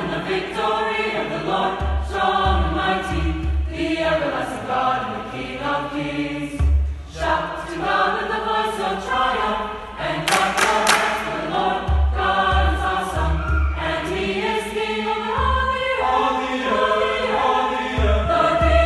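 Mixed high-school chorale singing in harmony, many voices together, with a few sharp hand claps about ten seconds in.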